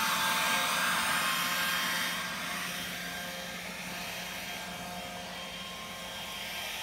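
Electric string trimmer's motor running with a steady high whine, growing quieter about two seconds in as it is carried away.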